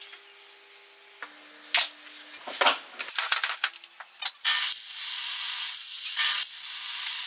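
A run of light clicks and knocks, then about four and a half seconds in a table saw starts cutting through the wooden block: a sudden, loud, steady hiss of the blade in the wood.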